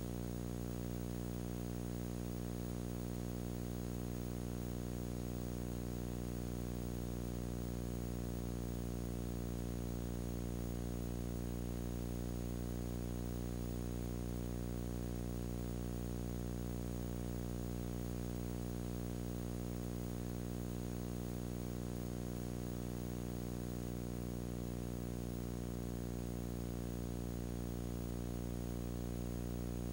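Steady electrical mains hum with a buzzy stack of overtones, unchanging in pitch and level, with faint hiss above it.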